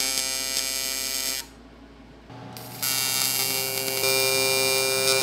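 TIG welding arc buzzing steadily with a high hiss while tack-welding tubes onto a fabricated heat-exchanger tube. The arc stops about a second and a half in, then strikes again near three seconds and keeps buzzing.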